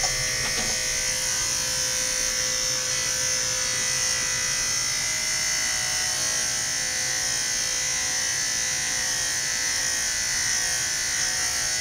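Electric dog grooming clippers running with a steady buzz while clipping a small dog's curly coat.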